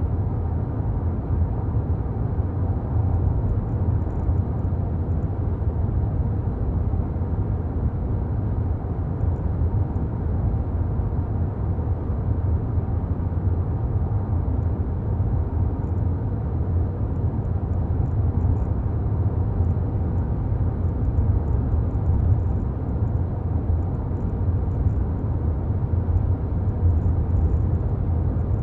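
A car driving at a steady speed: a continuous low rumble of tyre and road noise with engine hum, unchanging throughout.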